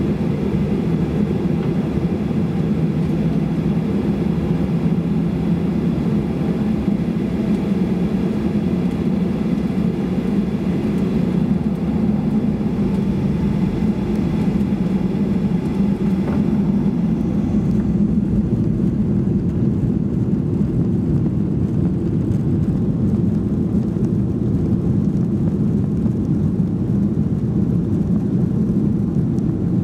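Steady cabin noise of a Boeing 737-800 heard from a window seat over the wing: its CFM56 jet engines running at low thrust as the airliner taxis onto the runway before the takeoff roll. A faint higher whine and hiss drop away a little over halfway through.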